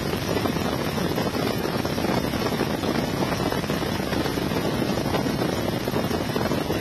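Helicopter in flight heard from on board: a steady, even rush of engine, rotor and wind noise.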